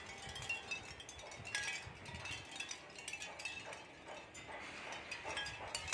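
Capiz shell wind chime stirring in the breeze: thin shell discs knocking together in light, irregular clinks with short high ringing notes.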